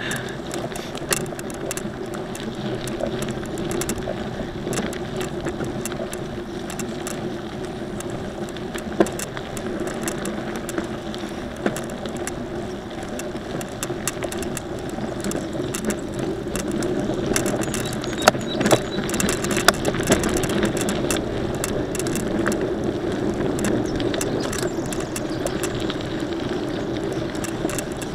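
Mountain bike being ridden: steady rolling and wind noise with constant light rattling and clicking from the bike, and a few sharper knocks about two-thirds of the way through.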